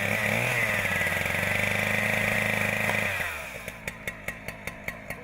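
Chainsaw revved to full throttle and held there for about three seconds, then dropping back to a ticking idle as the throttle is released.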